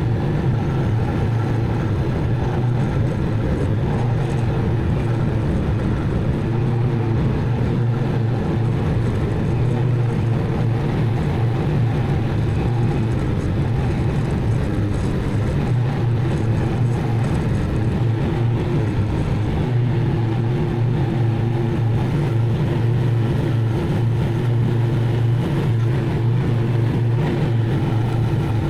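Zero-turn mower engine running steadily under load while mowing, an even drone with no breaks.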